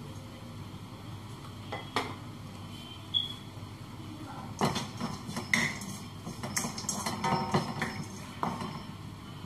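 Plastic spatula scraping and knocking against a nonstick wok while grated coconut is stirred over the heat. A couple of single knocks come in the first half, then a busy run of scraping and tapping from about halfway through.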